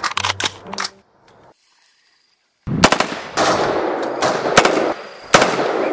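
Automatic rifle fire in bursts: a few sharp shots at the start, a pause, then about two seconds of rapid fire, a brief break, and a last short burst that stops abruptly.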